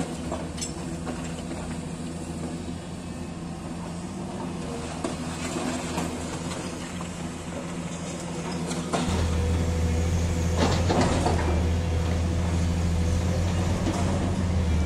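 Diesel engine of a hydraulic demolition excavator running steadily, with short crunches and clatters of masonry being broken and falling. About nine seconds in, the engine hum becomes louder.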